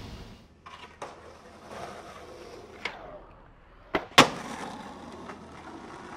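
Skateboard wheels rolling on rough asphalt, with a sharp tail pop about four seconds in and, a quarter second later, the loud clack of the board landing, then rolling on.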